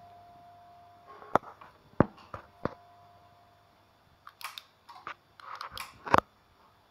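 Scattered sharp clicks and knocks from hands on the radio gear and its controls: a few single ones in the first three seconds, then a quicker cluster near the end. A faint steady tone sounds in the first second and again more faintly in the middle.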